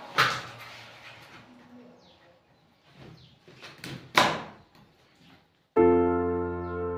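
Hand plastering tool working a wet plaster-of-Paris ceiling moulding: two loud, sharp scraping strokes, one just after the start and one about four seconds in, with a few fainter scrapes between them. Gentle piano music fades out at the start and returns abruptly about six seconds in.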